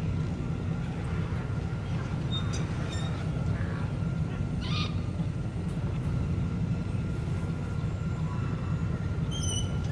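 Designed sci-fi desert-town ambience: a steady low mechanical drone, like machinery or idling starship engines, with a thin steady whine over it. Faint short beeps and chirps are scattered through it, with a brief electronic chirp near the end.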